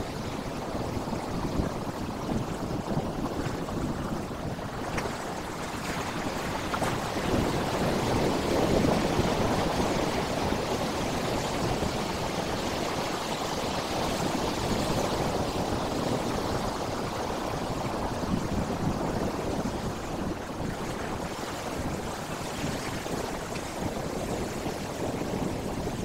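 Sea waves breaking and washing over flat rock ledges, a continuous rush of water that swells and eases.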